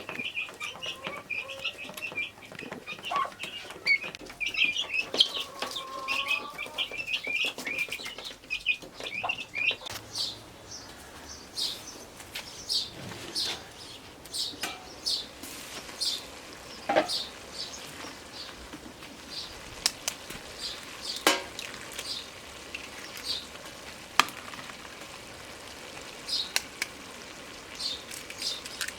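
Birds chirping densely for about the first ten seconds, then only now and then. Scattered clicks and taps are heard throughout.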